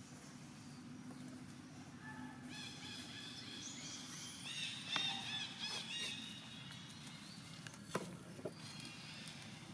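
Faint high-pitched animal chirps and squeaks begin about two seconds in and cluster in the middle, with a sharp click near the middle and another near the end.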